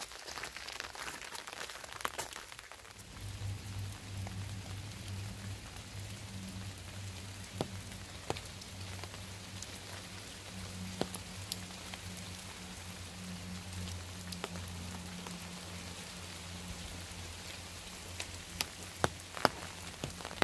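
Steady rain falling, with scattered sharp drop hits. A low steady hum sets in underneath about three seconds in.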